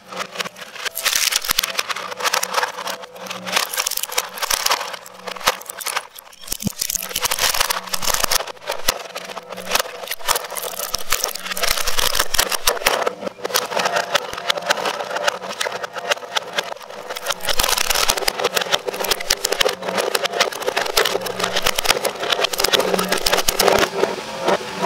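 Twin-shaft industrial shredder's steel cutters chewing through hard plastic toy-kitchen parts. Dense cracking and crunching runs over the steady hum of the drive, easing briefly between pieces.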